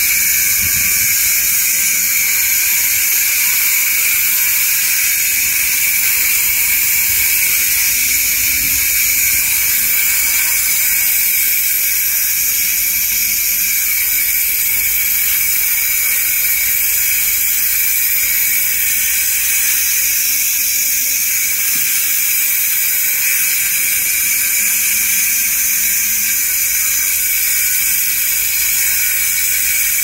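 Electric angle grinder with a cutting disc running steadily while cutting along a concrete edge: a continuous high-pitched grinding hiss.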